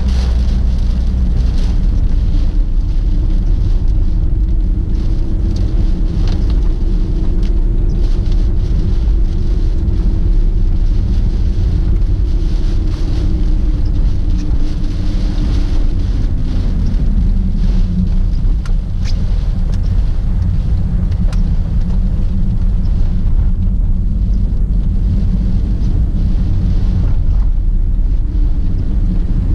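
A first-generation Honda Freed driving at speed through typhoon wind and rain, giving a steady, loud low rumble of road and engine noise. A faint engine tone rises and falls in the middle.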